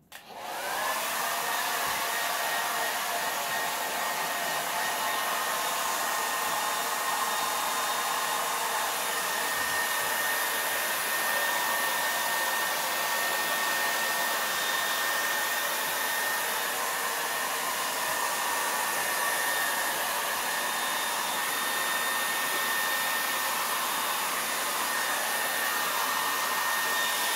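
Handheld hair dryer switched on, coming up to speed within about a second, then running steadily with a high whine over its rush of air.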